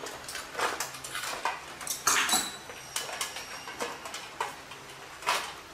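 Scissors snipping through the strings tying up a live sea crab, with irregular clicks and scrapes of the blades and the crab's shell against a metal sink. The loudest snaps come about two seconds in and again near the end.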